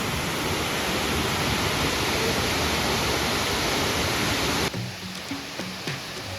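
Millaa Millaa Falls, an 18-metre waterfall, pouring with a steady rush of water. The rush cuts off suddenly about three-quarters of the way through, leaving quieter background music.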